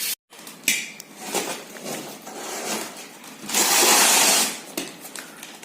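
Packaging being ripped open by hand: scattered crackles and rustles, then one long tearing rip lasting about a second, a little past halfway.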